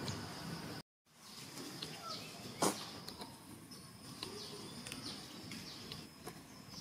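Outdoor ambience: a steady high-pitched insect drone with scattered short, falling bird chirps. A sharp click about two and a half seconds in is the loudest sound, and the audio drops out briefly about a second in.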